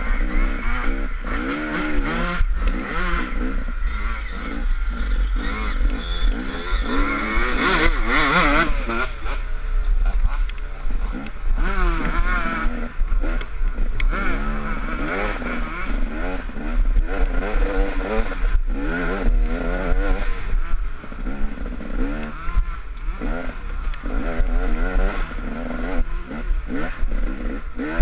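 Off-road dirt bike engine revving up and down over and over as it is ridden hard along a rough trail, with the chassis rattling and knocking over the bumps.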